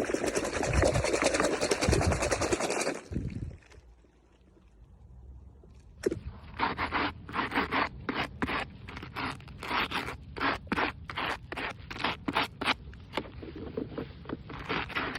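Toy packaging being opened by hand: a dense crinkling rustle for about three seconds, then after a short pause a run of short scraping strokes, two or three a second.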